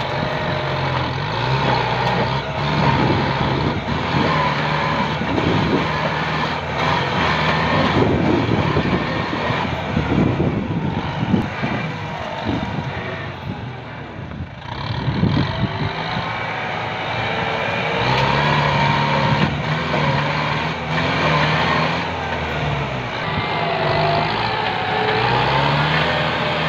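Kubota farm tractor's diesel engine working under load as it pushes through brush and small trees, with branches crackling and snapping. The engine sound dips about halfway through, then runs steady again.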